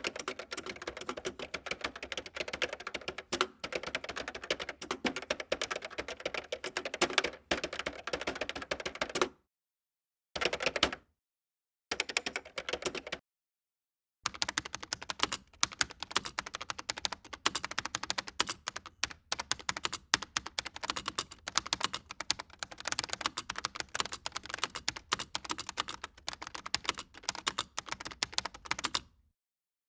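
Rapid typing on a computer keyboard: a dense stream of key clicks in bursts, broken three times by pauses of about a second, with a short pause near the end.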